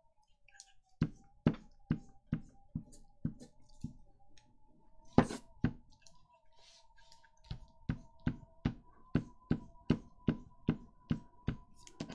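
Regular knocking on a tabletop, about two to three knocks a second, in two runs with two louder knocks in between, over a faint steady hum.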